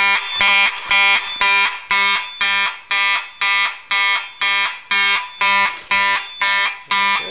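Simplex 4903-9217 fire alarm horn sounding in march-time code, about two loud blasts a second: the alarm signal of a zone activated at a manual pull station on a Simplex 4004 panel.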